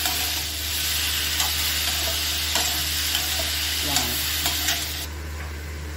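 Cubed ridge gourd frying in oil over a high flame in a metal kadai, a steady sizzle, with a perforated metal spatula stirring and clicking against the pan now and then. The sizzle drops away about five seconds in.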